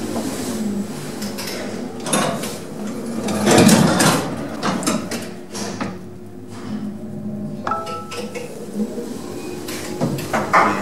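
Lift car moving in its shaft, heard from on top of the car: a steady hum with rattling and clunking, loudest about three and a half seconds in. A brief beep sounds near the eight-second mark.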